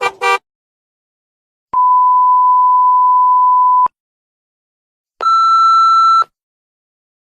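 Electronic beep sound effects from a pack: a quick two-part blip, then a steady pure beep lasting about two seconds in the manner of a TV censor bleep. About a second later comes a shorter, harsher beep rich in overtones.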